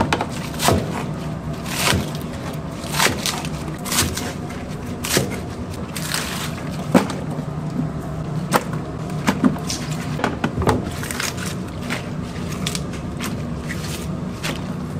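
Kitchen knife chopping green onions on a wooden cutting board: sharp single chops at irregular intervals, roughly one a second, over a steady low hum.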